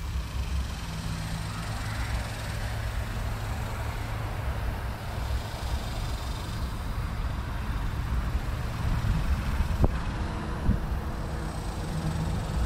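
Steady low rumble with a hiss over it, outdoor background noise with no clear single source, and one short sharp click about ten seconds in.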